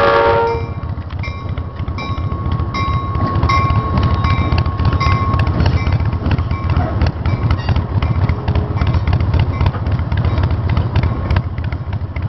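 A diesel locomotive's horn blast ends about half a second in. The locomotive and its train of open cars then rumble steadily past at a grade crossing, with the crossing bell ticking about twice a second.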